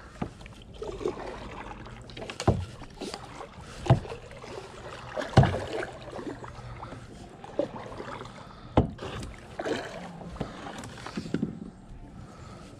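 Handling noise in a plastic fishing kayak while a hooked catfish is being fought: irregular sharp knocks and thumps of the rod and gear against the hull, about half a dozen, over low rustling.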